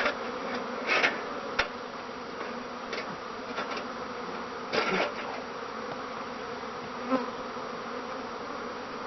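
Swarm of honeybees buzzing steadily around an open hive, with a few short clicks from the hive being worked.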